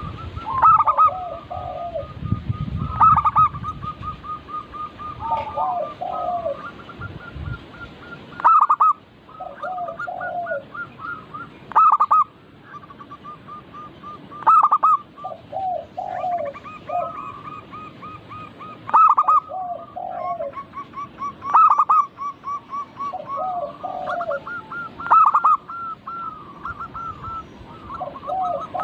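Several zebra doves (perkutut) cooing in overlapping songs. Each phrase opens with a loud note and falls into a rolling run of lower cooing notes, repeating about every three seconds, while quicker soft notes run between the phrases.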